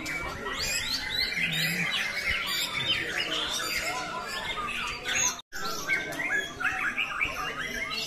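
Several caged white-rumped shamas (murai batu) singing at once in competition: a dense, overlapping tangle of rapid chirps, whistles and trills. The sound cuts out for a moment about halfway through.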